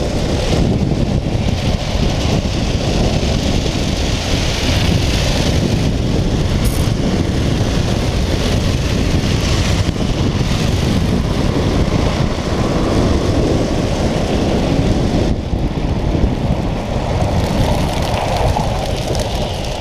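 Steady rumble of a speed trike rolling fast down an asphalt road, its wheels grinding on the surface, with wind buffeting the microphone.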